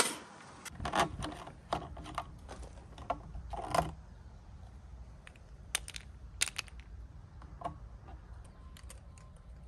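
Scattered sharp clicks and knocks of hard plastic and metal being handled: the fittings of a Paseco Sunset kerosene heater and the cap of a plastic jerry can being worked to refuel the heater. A sharp knock opens it, over a low steady rumble.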